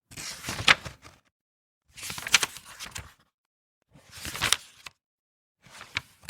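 Book pages being turned by hand, four times about every two seconds. Each turn is a paper rustle with a crisp flick or snap as the page goes over.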